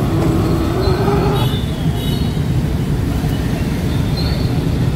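Steady traffic and street noise on a busy road, with faint voices from the crowd.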